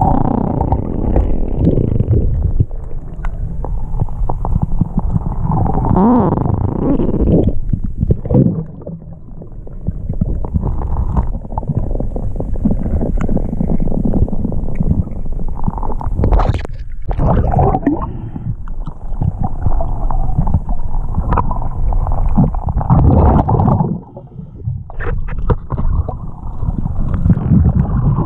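Loud, muffled underwater rumbling and gurgling with scattered scraping knocks as a diver's gloved hands scrape barnacles off a boat hull. The sound drops away briefly twice.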